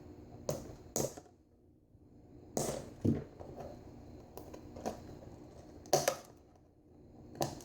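Box packaging being handled and pried at: a series of short, sharp crackles and taps at irregular intervals, with quiet gaps between, as the box resists opening.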